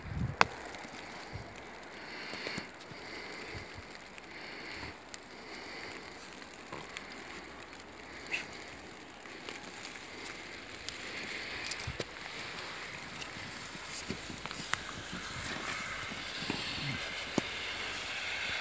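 Snow crunching and rustling as a dog and the person filming move through it, with the rustling strongest near the end while the dog rolls on its back in the snow; a few short sharp clicks.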